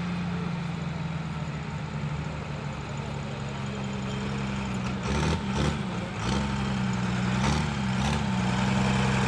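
Diesel pickup truck engine running hard at high revs in a burnout, holding a steady pitch. Past the middle the revs dip and climb back several times.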